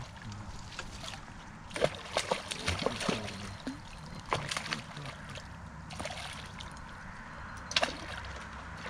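Irregular water splashes and sloshing as a hooked bream thrashes at the surface and a landing net is pushed through the water to scoop it, with a cluster of splashes about two seconds in and a sharp one near the end.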